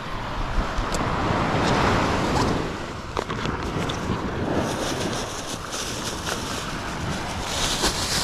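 Surf breaking and washing up the beach, with wind buffeting the microphone; the wash turns hissier in the second half.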